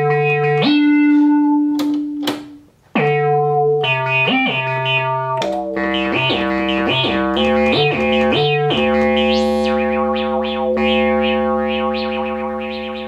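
ARP Pro/DGX monophonic analog synthesizer played on a preset voice: a few separate notes with short gaps, then a quick run of notes, then one held note that fades slowly.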